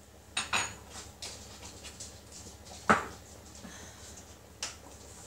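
Light clicks and knocks of spice jars and a salt tub being handled and set down on a wooden chopping board, four or five separate taps with one sharp knock about three seconds in.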